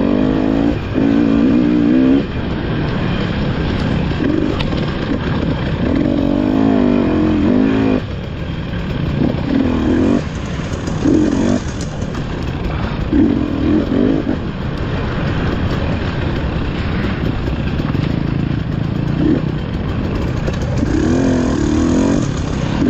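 Off-road dirt bike engine revving up and down in repeated bursts as the throttle is opened and closed, over a steady low rumble.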